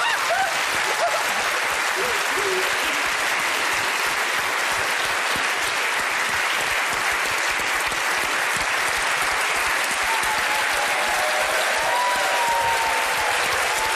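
Studio audience applauding steadily, with a few faint voices over the clapping late on.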